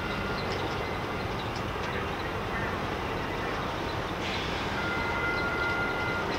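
Shipyard ambience: a steady industrial noise of machinery, with a thin high whine that sounds briefly at the start and again for over a second near the end.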